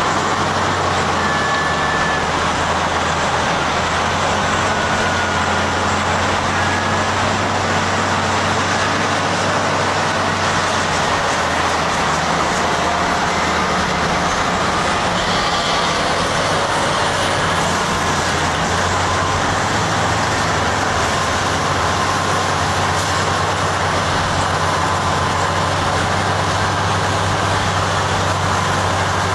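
Heavy diesel engines of Caterpillar 657 wheel tractor-scrapers running steadily, a deep continuous drone.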